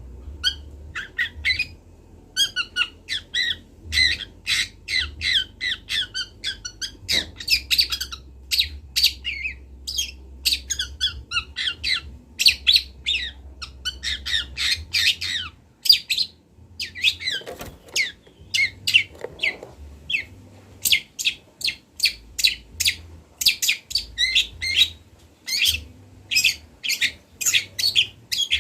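Juvenile long-tailed shrike chattering in quick runs of short, harsh, high notes with brief pauses: a young bird practising its song. A faint low hum lies beneath.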